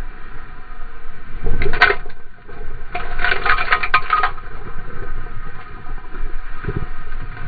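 Breaking-wave whitewater rushing and spraying over a camera mounted on a surfboard. The water splashes hardest in two bursts, about a second and a half in and from about three to four seconds in.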